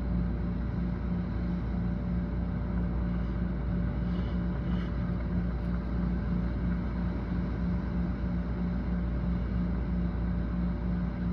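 Heavy rain and gusting wind in a thunderstorm, a steady rushing noise, over a low hum that pulses about three times a second.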